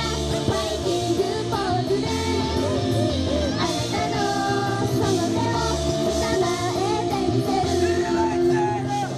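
Japanese idol-pop song performed live: young women's voices singing over an upbeat rock-style backing track with a steady beat.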